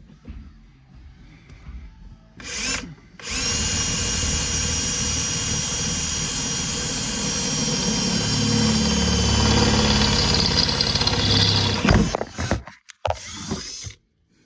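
Power drill with a hole bit boring through the car's floorboard: a short burst, then about eight seconds of steady drilling with a constant whine that stops abruptly about twelve seconds in.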